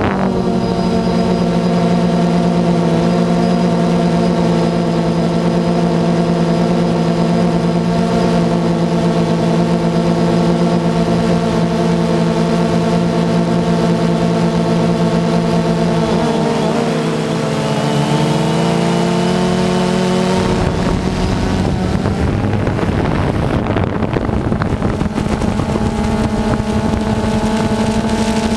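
DJI Phantom 2 quadcopter's motors and propellers humming steadily in flight, heard through the camera mounted on the drone. About two-thirds of the way through, the pitch wavers and shifts as the motors change speed. After that a rushing wind noise grows as the drone speeds up.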